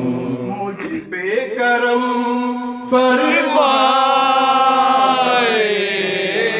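A man singing a naat (Urdu devotional poem) into a microphone, drawing out long held notes with wavering melodic turns; a louder phrase starts about halfway through and falls away near the end.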